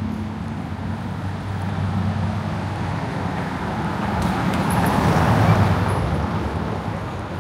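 Street traffic: a vehicle engine running with a steady low hum, and a passing vehicle whose road noise swells to a peak about five seconds in, then fades.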